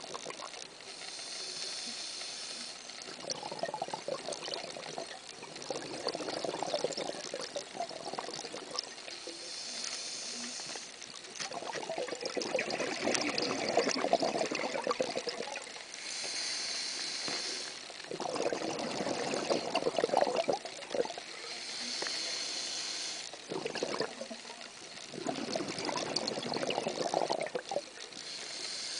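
A scuba diver breathing through a regulator underwater: a short hiss on each inhale, then a longer gurgle of exhaled bubbles, repeating about every six seconds.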